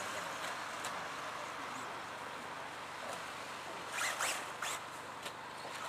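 1/10-scale electric RC off-road buggies running on a dirt track: a steady high hiss of motors and tyres on loose dirt, with a sharp, scratchy burst of whine and scrabbling about four seconds in.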